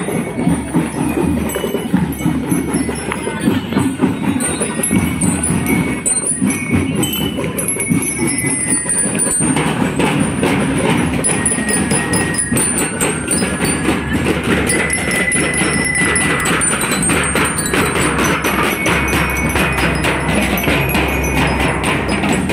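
Parade marching-band music: drums beating steadily, with bright ringing bell-like notes over them.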